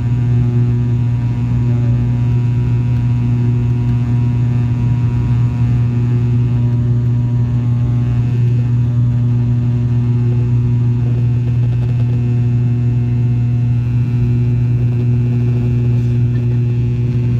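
ATR 72-600's turboprop engines and six-bladed propellers, heard from inside the cabin at climb power just after take-off: a loud, steady low drone from the propeller blades with a set of steady higher tones above it.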